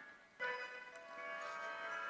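Background music: a light melody of sustained, chime-like notes, louder from about half a second in as new notes enter.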